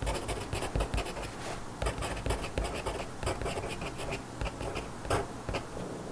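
A pencil writing on a notebook page in quick, short scratching strokes, which thin out near the end.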